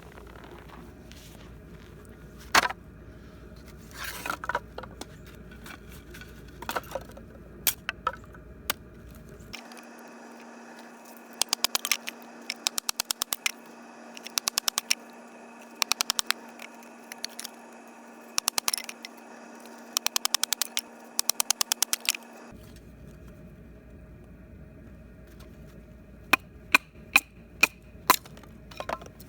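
Firewood being handled and broken to lay a campfire: scattered sharp cracks, knocks and scrapes of wood, with runs of rapid clicking in the middle stretch.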